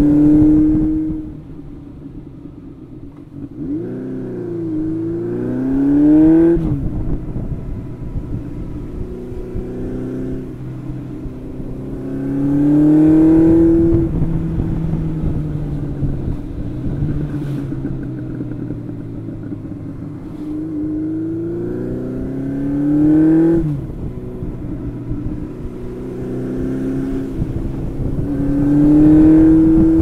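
Honda CB750 Seven Fifty's carbureted air-cooled inline-four, on a stock exhaust with the mufflers removed, accelerating and easing off while riding. The engine note climbs in pitch four times, falling back sharply after two of the climbs, with steadier running in between.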